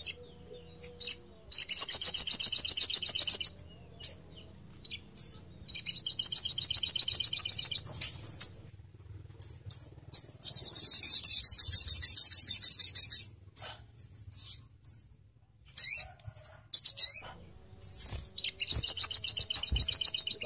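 Sogon (sogok ontong) bird singing: long, fast, high-pitched trills of rapidly repeated notes, each two to three seconds, four times over, with short sharp chips in between.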